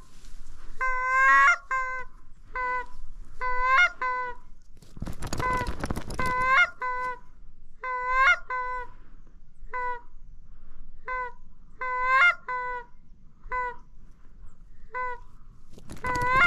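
Geese honking over and over, short clean honks in quick twos and threes. Twice a brief rush of rustling noise sounds under them, about five seconds in and near the end.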